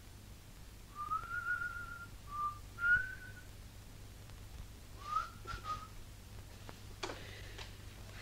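A man whistling a short tune to himself in a few brief phrases, with a pause in the middle, then a single light knock near the end.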